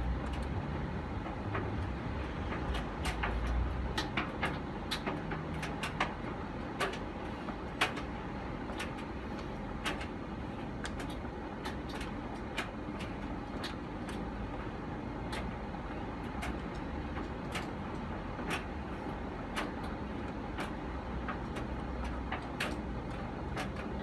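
Candy GCC 590NB condenser tumble dryer running: a steady hum from motor, fan and turning drum, with irregular sharp clicks and knocks throughout. It is running very hot with its lint filter removed and lint clogging the inside.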